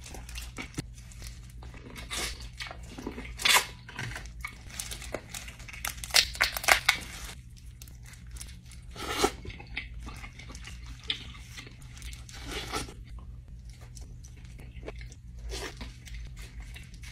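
Dungeness crab shell being cracked and torn apart by hand and the meat chewed close to the microphone: irregular crunches and crackles, the loudest cluster a little past the middle.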